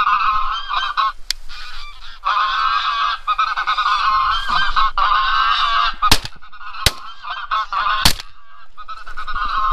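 Goose honking in a dense, steady chorus that breaks off briefly a few times. About six seconds in, three shotgun shots ring out within two seconds, the loudest sounds here, from a Browning A5 semi-automatic shotgun and a second hunter's gun.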